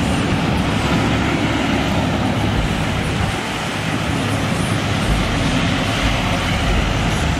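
Engine and tyres of a lifted pickup truck driving slowly past on sand. The sound is a steady rumble under a loud, even noise.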